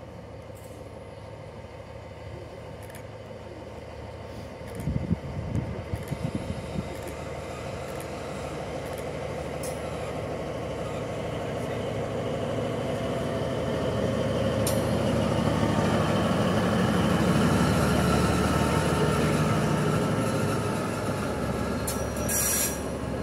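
Class 204 (V100-type) diesel locomotive running light: its engine rumble grows louder as it approaches and passes close by, loudest about three-quarters of the way through, then eases. A few brief low thumps come about five seconds in, and a short sharp high sound near the end.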